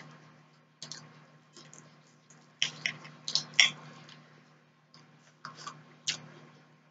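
Knife and fork clicking and scraping on a plate as a pork steak is cut, in irregular sharp strokes, loudest about two and a half to three and a half seconds in. Close-miked mouth and chewing sounds follow near the end as a forkful is eaten.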